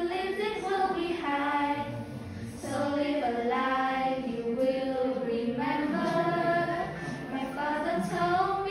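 Several girls singing a song together, holding long notes in phrases with brief breaks.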